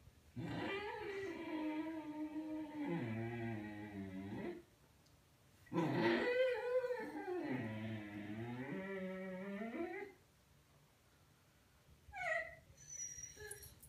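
A young Xoloitzcuintli (Mexican hairless dog) gives two long, drawn-out howling vocalizations of about four seconds each, their pitch wavering and dropping to a low growly tone at the end, then a few short high whines near the end. He is reacting to his own reflection in a mirror.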